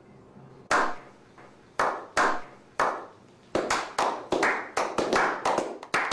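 A slow clap by a small group of men. Single hand claps come about a second apart at first, then from about three and a half seconds in more hands join and the clapping speeds up.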